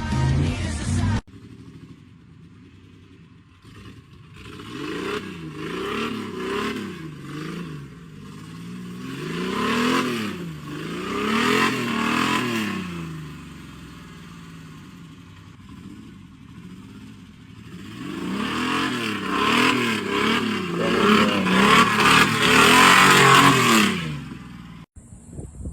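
Off-road 4x4's engine revving again and again, its pitch rising and falling every second or two. It is loudest in the last few seconds, then cuts off suddenly.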